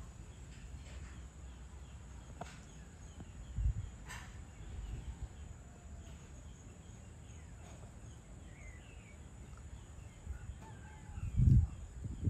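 Outdoor evening ambience: scattered bird chirps over a low steady rumble, with a loud low thump near the end.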